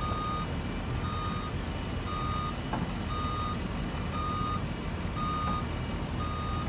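A vehicle back-up alarm beeping about once a second in short, steady single-pitched beeps, over the low, steady running of a Volvo wheel loader's diesel engine as it tips a bucket of mulch into a trailer.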